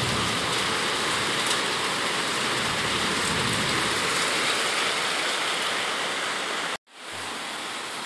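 Heavy monsoon rain pouring down, a dense steady hiss. It cuts out abruptly for a moment near the end and comes back quieter.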